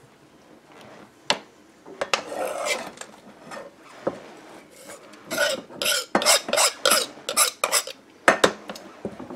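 A kitchen knife scraping chopped parsley, shallot and orange zest off a plastic cutting board into a nonstick frying pan: a run of quick scrapes, about three a second, with a few sharp clicks of the knife and board against the pan.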